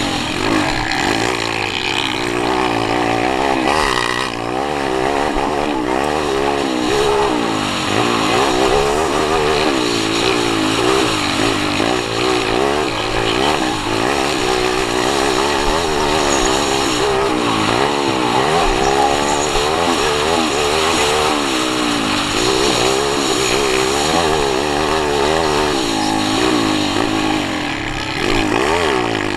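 Motocross dirt bike engine heard up close from on board, revving up and down over and over as the rider accelerates and shifts around the track.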